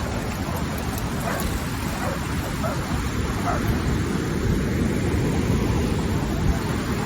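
Wind buffeting the microphone, with a dog giving a few short barks from about one to three and a half seconds in.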